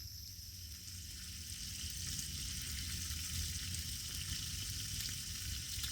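Flour-breaded small river fish frying in hot lard in a pan, a steady sizzle that grows louder about two seconds in.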